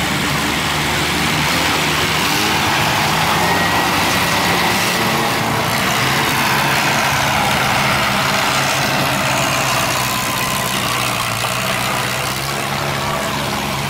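Vintage tractor engines running as several tractors drive slowly past, one after another.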